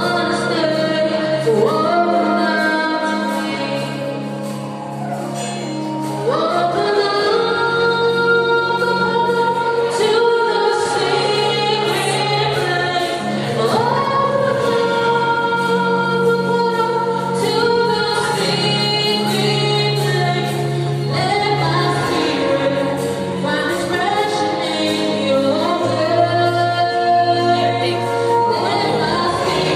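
Live gospel worship song: a woman leads on microphone while a choir sings behind her, over a steady instrumental accompaniment of long held low notes.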